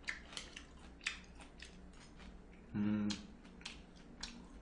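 Metal spoon and chopsticks clicking against bowls and plates while eating: a series of sharp clicks. About three seconds in comes a short hum of the voice, the loudest sound.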